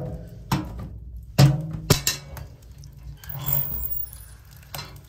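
Metal clicks and clanks of a steel sauna stove's firebox door as its lever latch is worked and the door is swung open on a burning wood fire: a few sharp knocks, the loudest about a second and a half in.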